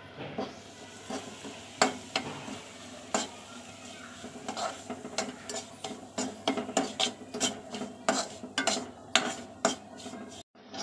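Ladle stirring and scraping semolina as it roasts in sizzling ghee in a steel kadai. Irregular scrapes and clinks against the pan come faster in the second half, and the sound cuts out briefly near the end.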